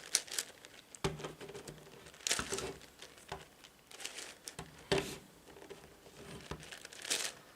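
Layers of a big 11x11x11 Rubik's cube turned by hand: irregular clicks and clacks of the plastic pieces, about ten turns spread unevenly through the stretch.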